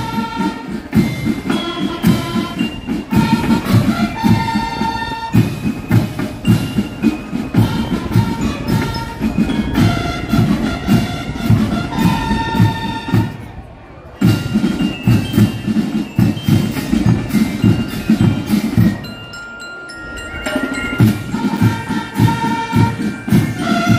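School marching band playing: drums beating a dense rhythm under a high melody. The drumming drops out briefly about 14 seconds in and again about 19 seconds in, while the melody carries on.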